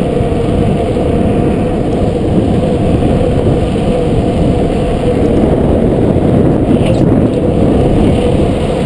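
Steady, loud wind rumble on an action camera's microphone from a bicycle moving down the street, deep and muffled with little high sound, plus a faint click about seven seconds in.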